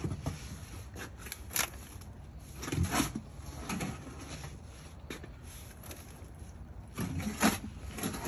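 A steel shovel scraping and digging into wet soil in a pickup truck bed, with the soil being dumped into a wheelbarrow: several separate scrapes and thuds a second or more apart.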